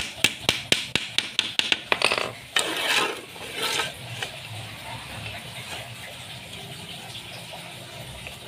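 A quick run of sharp taps or clicks, about five a second, for the first two seconds, followed by a couple of seconds of scraping, then it goes quiet.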